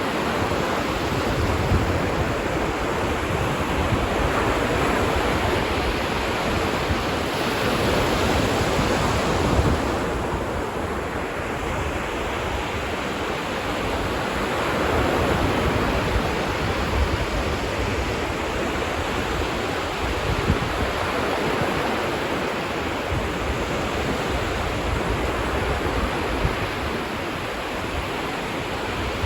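Ocean surf washing onto a beach, a continuous wash of breaking waves that swells louder now and then, with wind buffeting the microphone.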